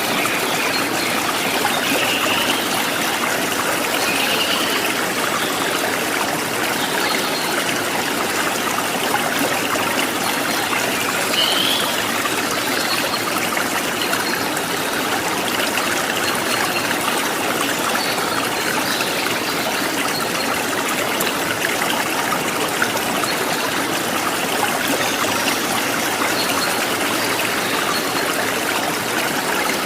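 A stream of running water, a steady, even rush, with a few faint bird chirps above it, mostly in the first dozen seconds.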